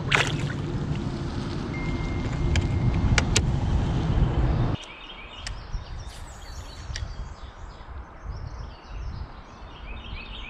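Wind noise on the microphone over running water, with a splash at the very start as a small smallmouth bass is let go into the river beside the kayak, and a few sharp clicks a couple of seconds later. About halfway it cuts abruptly to quieter riverside ambience with birds singing.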